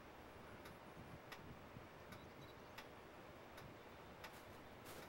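Near silence: faint outdoor background with soft, evenly spaced ticks about every three-quarters of a second.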